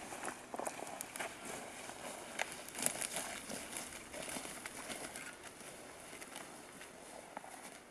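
Footsteps crunching through snow and frozen dry grass, an irregular run of crackling steps that thins out near the end.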